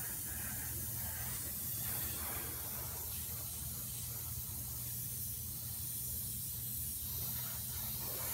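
Airbrush hissing steadily as it sprays paint in thin layers, with a steady low hum beneath.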